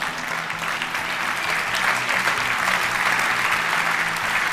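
An audience applauding, swelling over the first couple of seconds and then holding steady.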